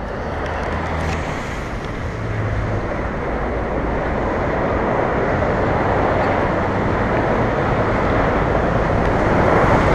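Dense freeway traffic passing below: a steady wash of tyre and engine noise that grows slowly louder.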